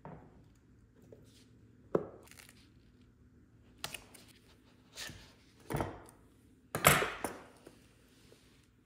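Leather steering-wheel cover being handled during hand-stitching: a series of short rustles and scrapes of hands, stitching thread and nappa leather, about six in all. The loudest comes about seven seconds in.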